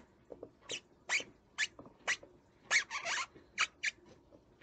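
Felt-tip marker squeaking as it is drawn across an inflated rubber balloon: a series of about eight short, high squeaks.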